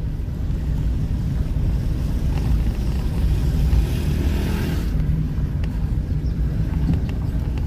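A car driving slowly along a city street, heard from inside: a steady low engine and road rumble. A brighter hiss swells between about three and five seconds in.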